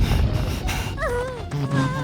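Cartoon soundtrack music, with a short wavering, falling vocal cry about a second in, like a character whimpering.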